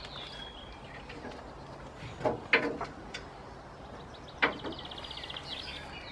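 Three sharp knocks, two close together about two and a half seconds in and one more a couple of seconds later, over birds chirping, with a fast bird trill in the second half.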